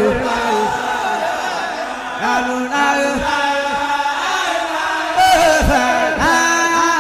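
Background vocal music: a chant sung by voices that hold long notes and slide between pitches.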